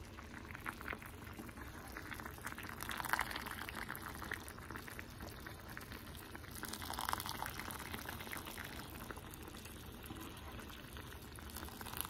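Pot of macaroni boiling, a soft steady bubbling and crackling heard close up, swelling briefly twice.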